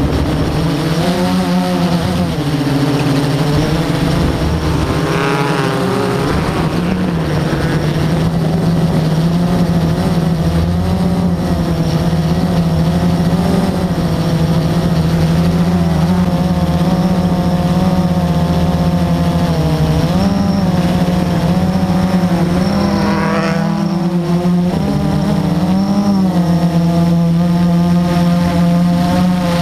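Blade 350 QX quadcopter's four brushless electric motors and propellers, heard through the onboard GoPro, running with a steady drone whose pitch wavers as the craft manoeuvres. A brief rising sweep in pitch comes about five seconds in and again near the end.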